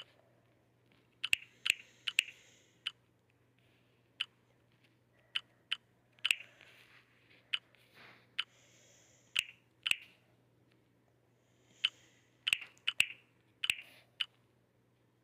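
Irregular sharp clicks, about twenty of them at uneven spacing, with short patches of soft hiss between some of them.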